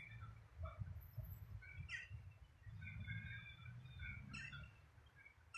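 Small birds chirping in short, scattered calls over a faint low rumble.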